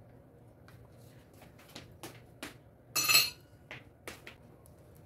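Ceramic coffee mug and plate being set down on a wooden table: a series of light knocks and one louder ringing clink of crockery about three seconds in.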